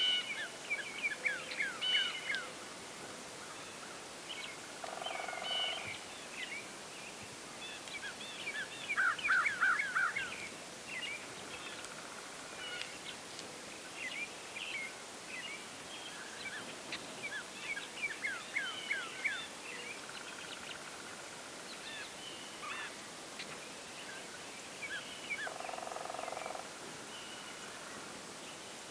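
Songbirds calling throughout in a dawn chorus: repeated short down-slurred chirps and quick trills, the loudest a fast run of notes about nine seconds in. Twice, once about five seconds in and once near the end, a lower steady call lasting about a second cuts through.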